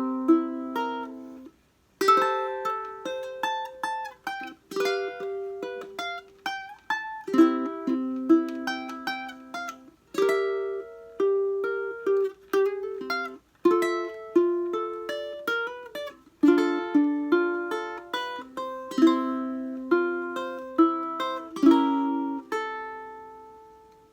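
Solo ukulele played fingerstyle: plucked melody notes over chords, each note ringing and fading. There is a short break in the playing about a second and a half in.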